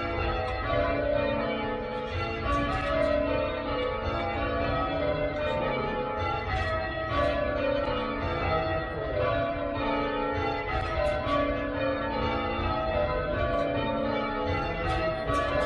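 Church bells rung in changes by a band of ringers: a steady, continuous run of overlapping bell strikes, with a low rumble underneath.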